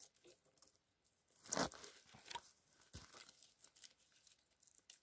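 Hands rustling and scraping as cord is tied around a wooden pole in a clove hitch, with one louder scraping rustle about a second and a half in and a short click near three seconds.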